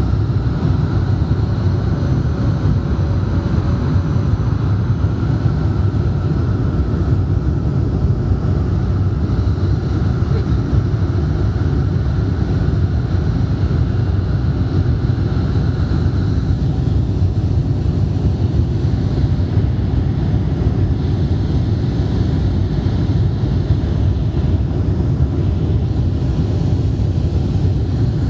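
Cabin noise inside an Avro RJ85 airliner on approach: a steady low rumble from its Lycoming LF507 turbofans and the airflow, with a faint high whine. A mid-pitched tone in the engine sound drops away a little past halfway.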